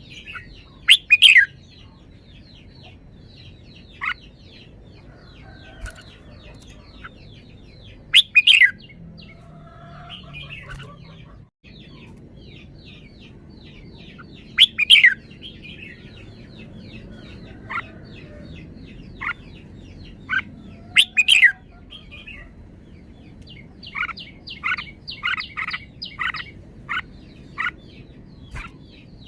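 Red-whiskered bulbul singing short, loud phrases about every six or seven seconds, then a quick series of short notes near the end, over continuous faint chirping from other birds.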